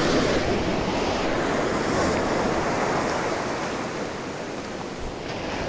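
Ocean surf washing onto a beach: a steady rush of noise that eases a little after the middle.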